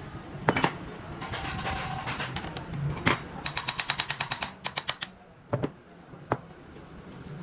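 Tools knocking and clicking on metal parts: several sharp single knocks, with a quick run of light taps, about eight a second, in the middle.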